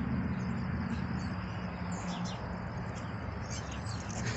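Squirrel scolding with short, high-pitched chips in two brief clusters, over a steady low hum.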